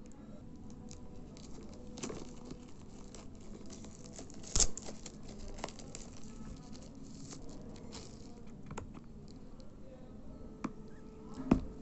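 Clear plastic shrink-wrap being peeled and torn off a small cardboard box: scattered crinkles, rustles and light taps, with two louder clicks, one about halfway through and one near the end.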